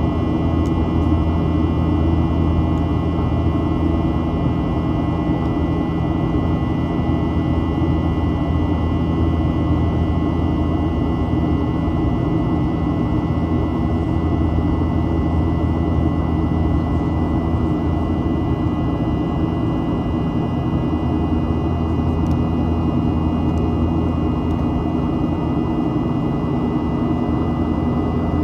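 Jet airliner cabin noise in the climb after takeoff: a constant low drone of engines and airflow, with a few steady whining tones above it.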